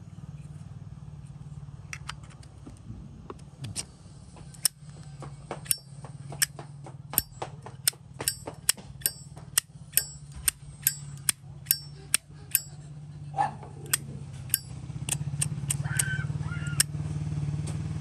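Zippo lighter lid being flicked open and snapped shut over and over, a string of sharp metallic clicks, about two a second at the busiest.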